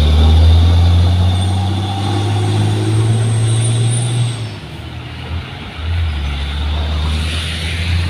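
Heavy tanker truck's diesel engine labouring uphill in a low gear, a loud, deep, steady drone that eases off about four and a half seconds in. About a second and a half later a second truck's engine drones in as it climbs past.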